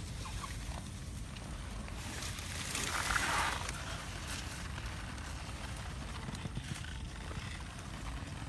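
Rustling of leaves and dry stalks as a wire-mesh rat trap is pushed into a clump of plants, loudest about three seconds in, with a few light clicks, over a steady low rumble.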